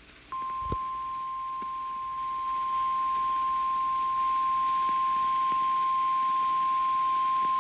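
NOAA Weather Radio warning alarm tone: a single steady high-pitched tone of about 1050 Hz that sounds before a warning is read. It starts just after the opening with a brief low thump, and steps up slightly in level in the first few seconds.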